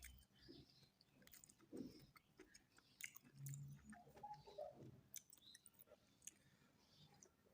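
A person chewing a mouthful of mutton biryani, quiet and close, with many small wet mouth clicks.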